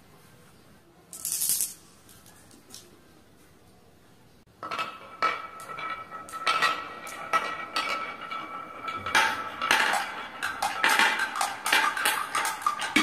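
Glass marbles rolling and clattering down a wooden marble run: a dense run of quick clicks and knocks begins about four and a half seconds in. A brief hiss comes about a second in.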